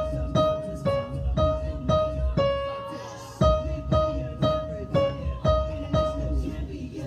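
Music: a high note struck or sung sharply about twice a second, every few notes dipping a step lower, over a low bass, with a brief pause about three seconds in.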